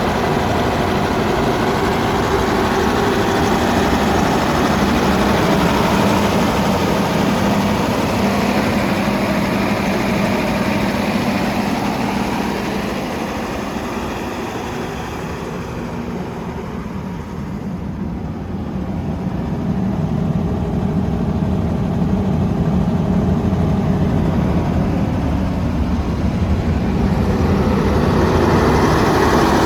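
Perkins 2306C six-cylinder diesel engine of an FG Wilson 400 kVA generator set running at a steady speed. Midway through, the sound turns quieter and duller for several seconds, then comes back up to full level.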